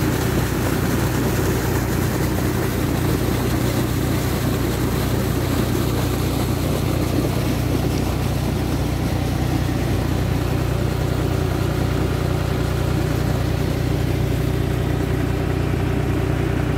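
Tractor diesel engine running steadily at constant speed, driving a PTO-mounted water pump that is pumping flood water out of a field.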